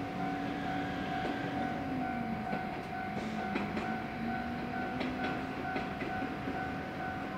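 Shinkansen station platform ambience: a steady electrical whine with a higher tone pulsing on and off, a lower hum that slowly falls and rises in pitch, and a few faint clicks.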